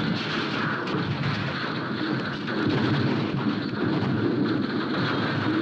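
A car tumbling and crashing down a rocky slope: a continuous rumbling clatter of metal, rock and dirt, with no single hit standing out.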